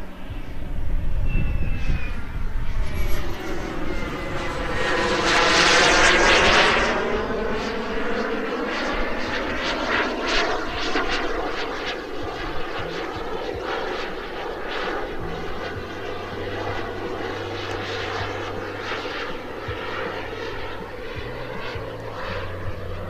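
Hybl H16 kerosene turbine of a scale RC Viper Jet in flight: a steady jet rush and whine that swells to its loudest as the jet passes about six seconds in, then carries on fainter as it flies off.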